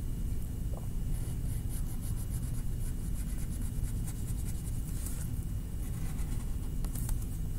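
Quick repeated strokes of a drawing tool scratching on paper, about four or five a second, pausing and resuming a couple of times, over a steady low hum.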